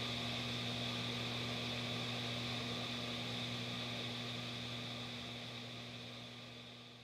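Steady rushing hiss with a low steady hum from a water vortex swirling in a basin. It fades away over the last two seconds or so.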